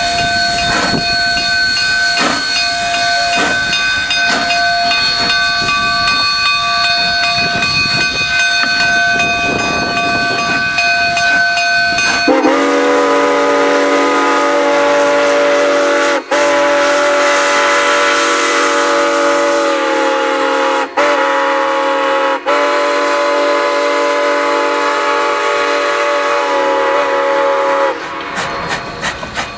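Narrow-gauge K-36 steam locomotive hissing steam with a steady ringing note and slow, irregular chuffs as it works past. About twelve seconds in, its steam whistle sounds the grade-crossing signal: long, long, short, long, with the last blast ending shortly before the end.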